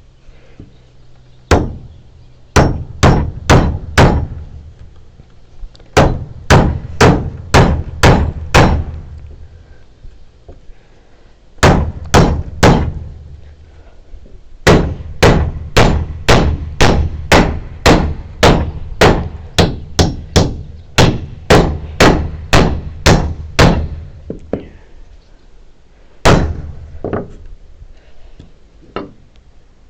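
Hand hammer striking a timber frame, in runs of steady blows about two a second with short pauses between the runs.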